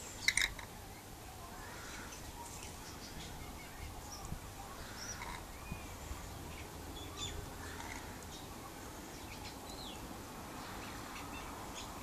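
Birds chirping and calling: scattered short chirps and squeaks, with a few short rising and falling whistles, and one brief loud shrill call just after the start.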